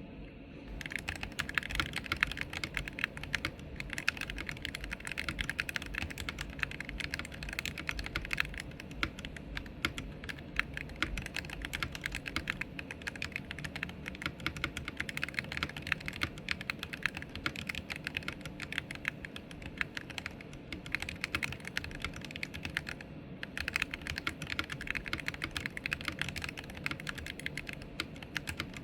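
Royal Kludge RK68 HE mechanical keyboard with magnetic Hall-effect switches being typed on quickly, a dense stream of key clacks that starts about a second in and breaks off briefly about three-quarters of the way through.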